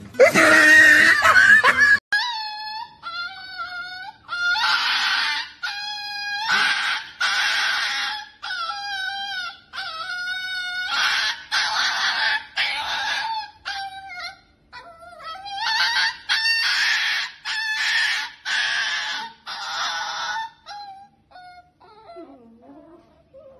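A small poodle crying out in repeated high whines and squeals, some sliding down in pitch, while its paw is held for nail clipping, though no nail has been cut yet. A brief loud noise comes first, in the opening two seconds.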